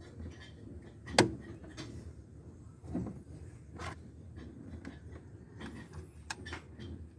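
A few sharp knocks and clicks, the loudest about a second in and fainter ones later, over a low steady hum.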